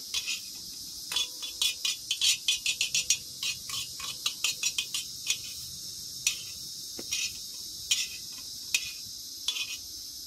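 Metal tongs clicking and scraping against a hot pan as blackened green beans are scooped out, with irregular sharp clicks in quick runs. A steady hiss from the propane burner and the hot pan runs underneath.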